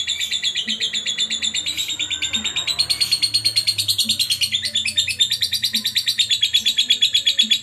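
Lovebird singing a long, unbroken high-pitched chattering trill of rapid repeated notes, more than ten a second, the sustained 'gacor' song used as a master recording for training other birds.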